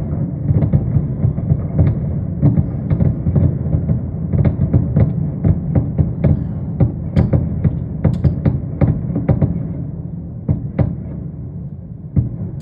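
Fireworks finale: aerial shell bursts going boom in quick succession, many overlapping, thinning out over the last few seconds with one last loud bang near the end.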